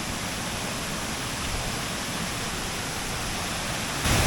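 Waterfall rushing: a steady roar of falling water, suddenly louder near the end.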